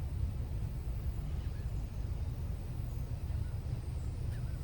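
Steady low rumble of wind buffeting the microphone, with a few faint bird calls.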